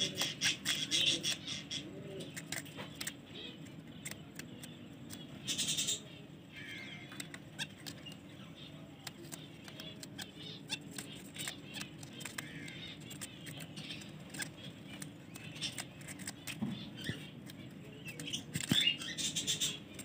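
Owl finches (double-barred finches) in a small wire cage: short chirps and calls with wing flutters and light clicks as the birds move about, loudest at the start, about six seconds in, and near the end, over a steady low background rumble.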